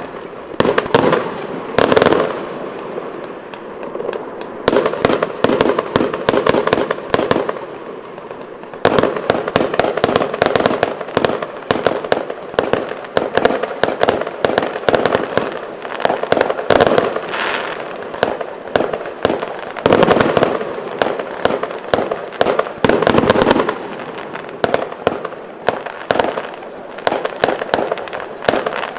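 Fireworks display: a dense run of rapid bangs and crackling that keeps going, thinning briefly about three and again about eight seconds in.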